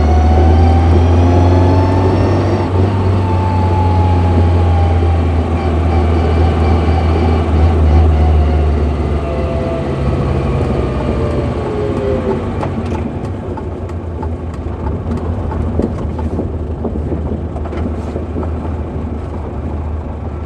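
Car gearbox whining while driving, heard inside the cabin over a steady low engine drone: the whine climbs in pitch for the first couple of seconds, then slowly falls, and fades out about twelve seconds in as the car slows.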